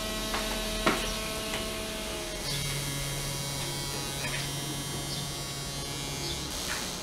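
A steady electric appliance motor hum, starting about two and a half seconds in and stopping about half a second before the end. Before it there is a thinner steady higher tone and a single knock about a second in.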